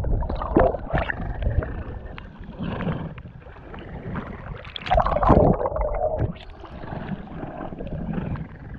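Seawater sloshing and gurgling around a waterproof action camera as it dips under and breaks the surface, with louder splashy surges about a second in and about five seconds in.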